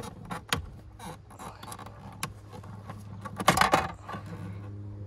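Hands and a small tool working at plastic dashboard trim: scattered clicks and taps, with a louder scraping rustle about three and a half seconds in, over a steady low hum.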